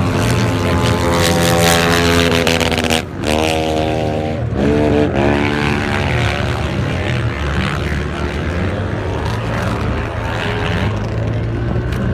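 Racing quad engines on an ice track, revving hard. After a brief break about three seconds in, the pitch climbs twice as they accelerate, then settles into a steadier drone of several engines.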